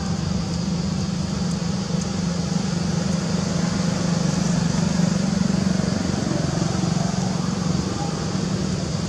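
A steady low engine hum, like a motor vehicle running, with a constant hiss above it and no change in pitch.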